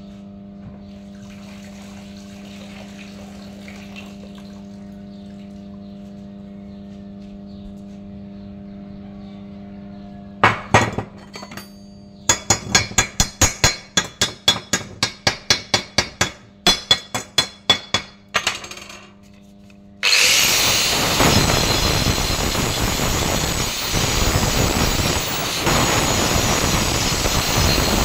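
A low steady mains hum, then, about ten seconds in, quick metal-on-metal strikes, about three a second, as welding slag is chipped off a welded square steel-tube frame. About twenty seconds in, an angle grinder starts and runs steadily, grinding the steel frame.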